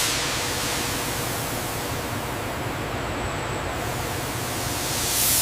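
Steady hissing noise with a low hum, like machinery in a factory hall. A brighter rush of hiss fades at the start and swells again near the end, and a faint high whistle stops a little past halfway.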